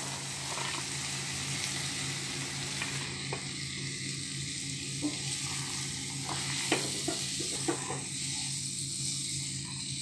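Diced boiled goat liver and potato cubes sizzling in a pan of fried spice paste while a slotted spatula stirs them, with a few light clicks of the spatula against the pan.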